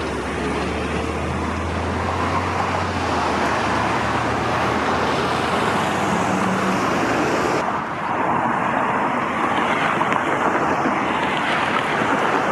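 Steady road traffic noise: a vehicle's engine hum and the rush of tyres on the road. A low engine drone fades about three seconds in, and the sound shifts abruptly near eight seconds.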